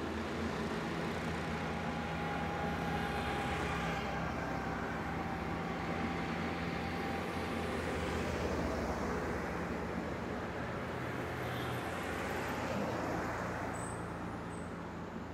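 Road traffic passing: three-wheeler auto-rickshaws and cars driving by, a steady low engine hum under rushing tyre noise. The noise swells as vehicles pass about two-thirds of the way in, then fades near the end.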